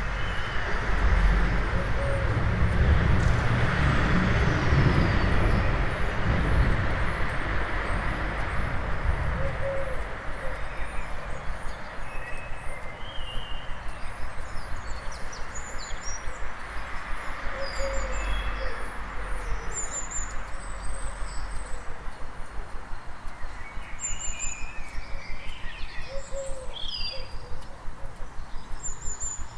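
Dawn chorus in a town centre: a vehicle's rumble passes in the first ten seconds or so, then fades to a lower traffic hum. Over it, birds call and sing, with a quick, evenly repeated high chirp early on and scattered calls and song phrases growing busier near the end.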